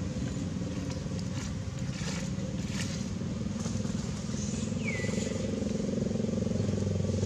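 A low, steady engine hum, with a few faint clicks. About five seconds in, a short high squeak glides down in pitch.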